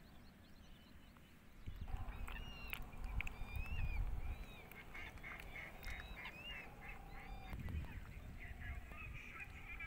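Birds calling: gliding high calls, then from about halfway a run of short repeated calls, over a low rumble.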